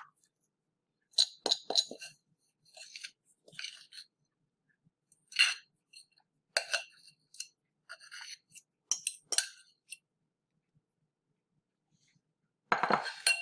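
A utensil scraping and clinking against a glass mixing bowl in irregular short strokes as soft dough is scraped out, then a louder clatter near the end as the bowl is set down.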